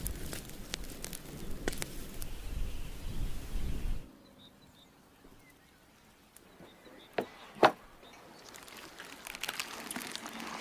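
Wood fire crackling in a clay tandoor pit, with a low rumble, which cuts off about four seconds in. Then it is quiet apart from two sharp knocks a little after seven seconds, and soft crackling and tearing near the end as roasted lamb is pulled apart by hand.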